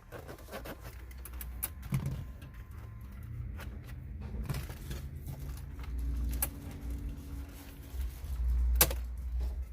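The plastic radio trim panel of a BMW 330i's dash being pried and pulled free by hand: scattered clicks and knocks of plastic and its retaining clips, with one sharp snap about nine seconds in, over low rumbling bumps.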